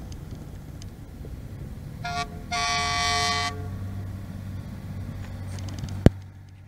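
Horn of a 2005 Freightliner Columbia semi truck sounded twice, a short blast then a longer one of about a second, over a steady low engine hum. A single sharp click comes near the end.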